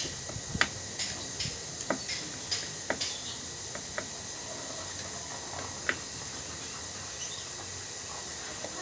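Irregular sharp clicks and light knocks, about a dozen, mostly in the first six seconds, from hands and tools at work on a washing machine while its gearbox is being fitted.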